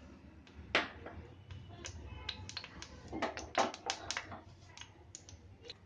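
Irregular light clicks and taps from a frying pan with hot oil being handled on a gas stove, thickest about three to four and a half seconds in.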